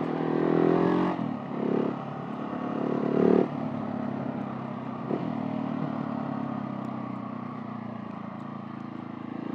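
Husqvarna 701 Supermoto's single-cylinder engine running under way. The revs rise in the first second and surge briefly twice over the next few seconds, then it settles to a steady cruise that eases off slightly near the end.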